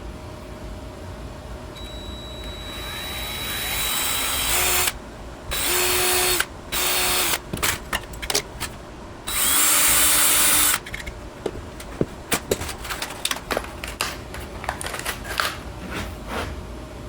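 A workshop power tool run in several short bursts, with hiss rising a couple of seconds in and cutting on and off, followed by a string of light clicks and knocks.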